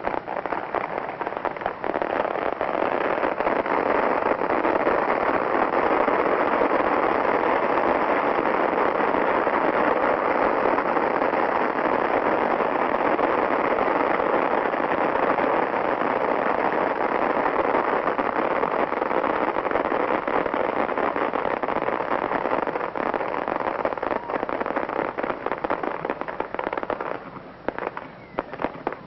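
Fireworks crackling in a dense, continuous barrage, thinning out near the end.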